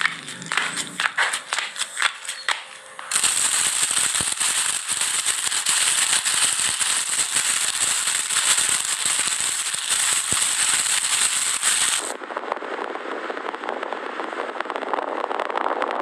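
Foley sound effects: a run of sharp clicks and crackles, then about three seconds in a dense crackling hiss that stops suddenly near twelve seconds, giving way to a softer, lower, steady rushing hiss.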